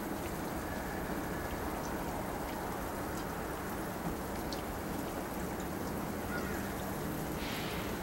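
Wet snow mixed with rain falling steadily, a constant hiss with scattered small ticks of drops striking surfaces.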